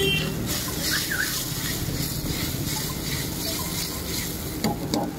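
A metal ladle stirring a steaming thin sauce in a black iron wok over a gas burner, with the hot liquid sizzling steadily. A few sharp clicks of the ladle against the wok come near the end.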